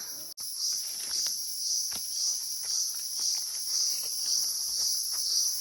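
A steady, high-pitched shrilling chorus of insects with a slight pulse, with faint rustles and small clicks of movement on the forest floor beneath it.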